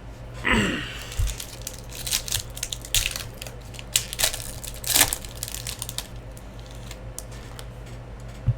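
A trading-card pack wrapper being crinkled and torn open, with a dense run of crackles and snaps over the first five seconds. After that comes quieter handling of the cards and one sharp click near the end.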